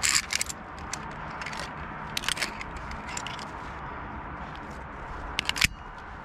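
Metal via ferrata carabiners clicking and scraping against the steel safety cable: a handful of sharp clacks, the loudest near the end, over steady low background noise.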